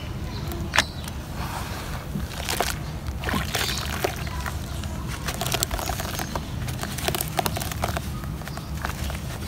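Wet mud sloshing and squelching as hands squeeze and rub a soaked mud block in a basin of frothy water, with irregular small clicks and crackles and a sharp click about a second in. A steady low rumble runs underneath.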